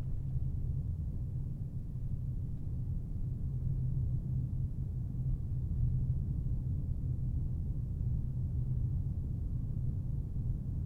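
A car driving at a steady pace: a constant low rumble of road and engine noise.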